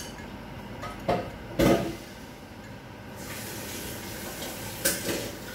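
Kitchen work at a sink: two loud knocks of dishes or cookware about a second and a half in, then tap water running steadily from about three seconds in, with two more clinks near the end.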